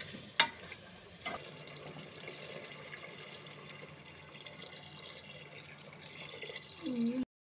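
Water poured from a bowl into a pressure cooker over chicken masala, a steady pouring splash. A sharp knock about half a second in is the loudest sound, and everything cuts off suddenly near the end.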